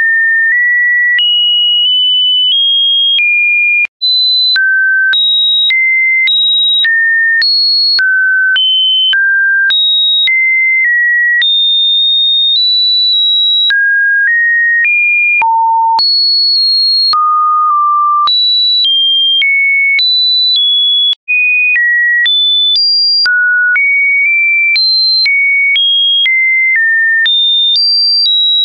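A run of synthetic pure-tone test beeps, each held about half a second before jumping to a new, seemingly random pitch, high up and never low, with a faint click at each change. The tone drops out briefly twice.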